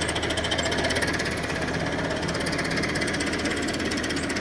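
Tractor diesel engine running steadily at low revs, with a fast, even chugging knock.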